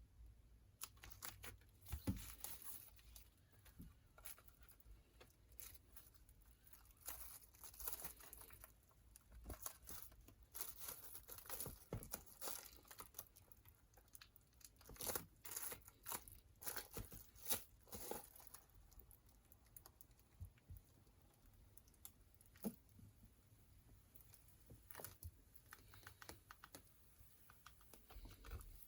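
Packaging of a vinyl record being torn open and crinkled by hand, with scattered soft crackles, rustles and handling clicks.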